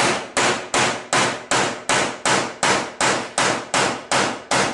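Rapid, steady hammer blows on the door of a small steel safe, about three a second, each a sharp metallic strike that rings briefly.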